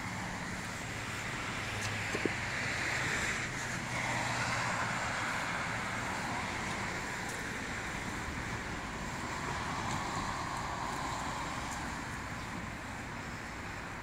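Street traffic: a steady wash of car engine and tyre noise, swelling twice as vehicles pass close.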